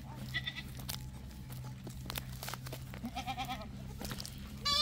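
A flock of goats bleating as it is driven along: a few separate bleats, some high and thin, with the loudest call near the end.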